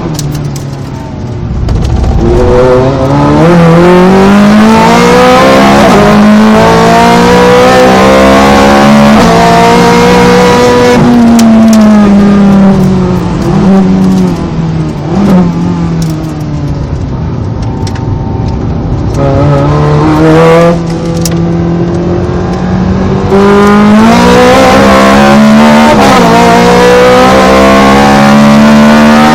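Ferrari 430 Scuderia's 4.3-litre V8 at full throttle on track. The engine note climbs through the gears with sharp drops at each upshift, then falls away under braking with short blips on the downshifts before pulling hard again, several times over.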